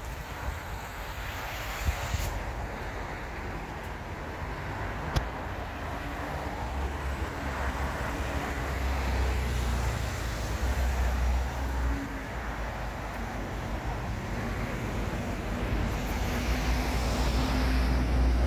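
City street traffic: cars and a motor scooter passing, a low engine rumble swelling about halfway through and again near the end. A single sharp click about five seconds in.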